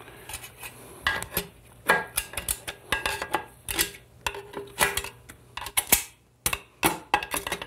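Flat steel snap ring being worked into its groove in a TH400 transmission case with a screwdriver: irregular metallic clicks, scrapes and short ringing clinks.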